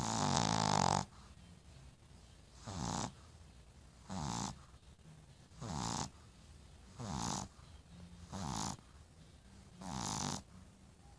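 Steady rhythmic snoring from someone asleep: a rattling snore on each breath, seven of them about a second and a half apart, the first one longer and louder than the rest.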